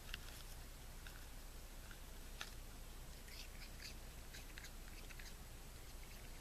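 Raccoon munching food: faint, crisp, irregular crunching clicks over a low steady hiss, busiest in the middle, with a sharper crunch about two and a half seconds in.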